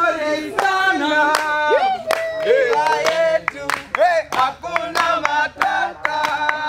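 Local men singing a song together in call-and-response style, keeping time with hand claps at about two a second.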